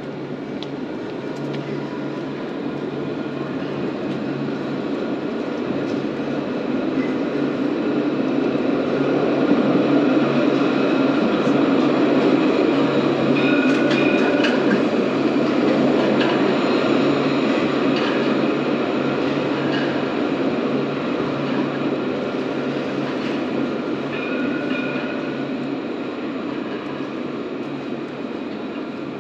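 A city tram passing close by: rolling noise that builds to a peak about ten seconds in and then slowly fades, over a steady pulsing low hum, with a few brief high squeals.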